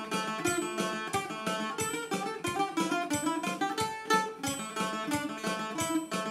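Greek bouzouki played with a pick: a quick, continuous melody of single plucked notes, several each second.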